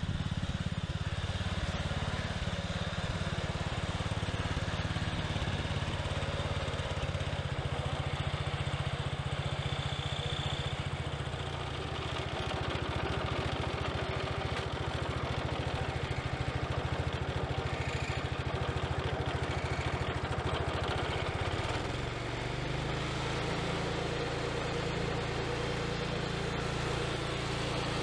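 Garden tractor's small engine running steadily, with its note changing about three-quarters of the way through.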